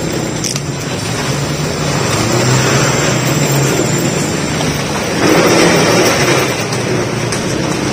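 Car engine running and accelerating, heard from inside a moving car, with a louder surge about five seconds in.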